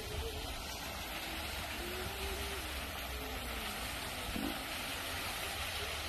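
Steady rush of a small waterfall pouring into a pond, with a low rumble underneath.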